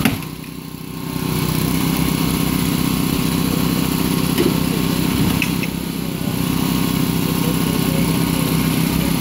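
Small gasoline engine of a hydraulic power unit for rescue tools (spreaders and cutters), running steadily. It is briefly quieter about a second in and again around six seconds.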